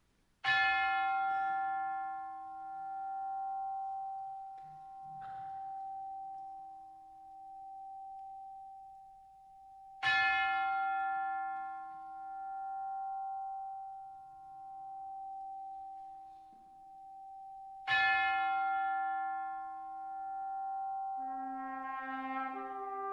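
A tubular bell tolls three times, about eight to ten seconds apart. Each stroke rings on a long while, slowly pulsing as it dies away. Near the end the brass band enters softly with a held chord.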